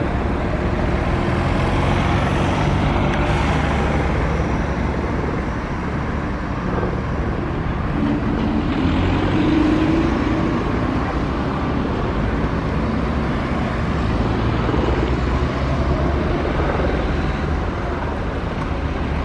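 Steady engine noise: a light helicopter flying overhead, mixed with road vehicle engines. One engine tone rises in pitch about eight to ten seconds in.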